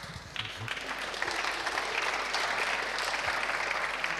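Audience applauding in a large hall, swelling within the first second and then holding steady.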